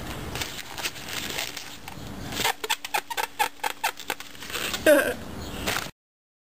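Latex modelling balloons squeaking and rubbing as a twisted balloon poodle is handled: a quick run of short squeaks about two and a half seconds in, then a longer squeak. The sound cuts off suddenly near the end.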